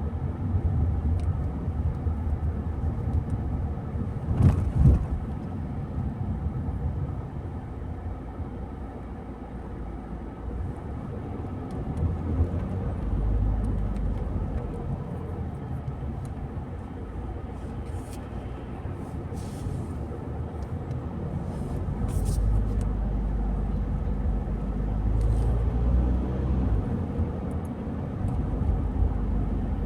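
A car driving along a road: steady low rumble of engine and tyre noise that swells and eases, with a brief knock about four to five seconds in.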